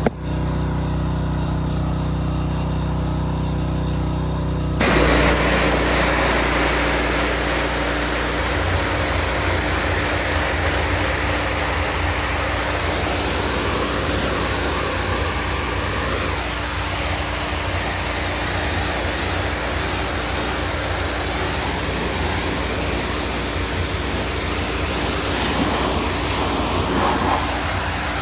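Hot water pressure washer running with a steady engine drone. About five seconds in, the trigger is pulled and the high-pressure spray starts with a sudden loud hiss, which carries on over the engine.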